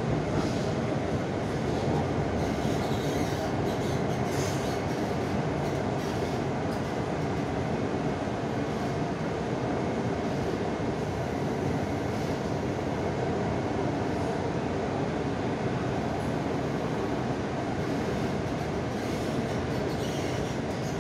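Mumbai Metro train running at speed, heard from inside the carriage: a steady running noise of wheels on the track and the moving car, unchanging throughout.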